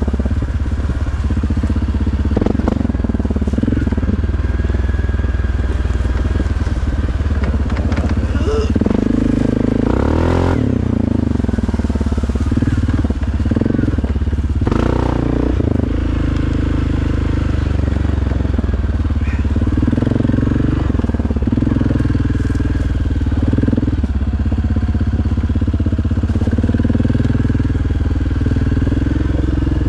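2022 Suzuki King Quad 750's single-cylinder four-stroke engine running through an HMF Performance series exhaust, revving up and back down about ten seconds in and again about fifteen seconds in, otherwise running steadily.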